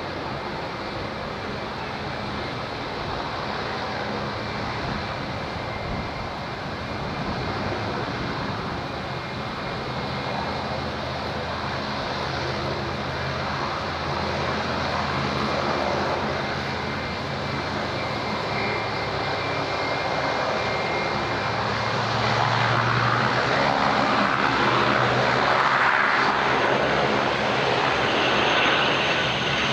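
Silver Airways ATR 42-600 twin turboprop on landing approach, its Pratt & Whitney PW127M engines and six-bladed propellers running with a steady low propeller hum under a broad drone. The sound grows gradually louder as the aircraft nears.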